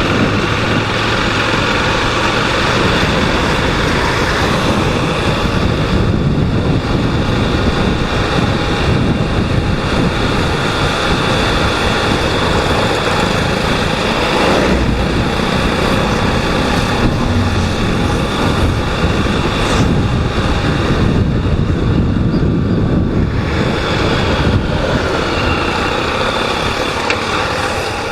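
Honda Twister 250 cc single-cylinder motorcycle engine running steadily, with continuous road noise.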